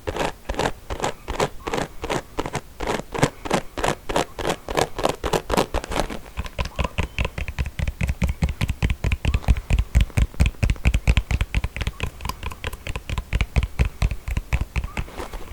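Combs worked close to the microphone in quick repeated scratching strokes, about five a second. About six seconds in they change to faster strokes with a deeper thump.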